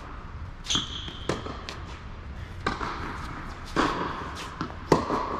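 Tennis rally on an indoor hard court: sharp pops of the ball off racket strings and bounces on the court, about five in all and roughly a second apart, the loudest near the end. A brief shoe squeak comes about a second in.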